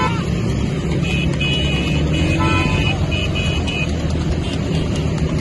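Motorcycle engines running steadily while horns give a string of about six short toots between one and four seconds in.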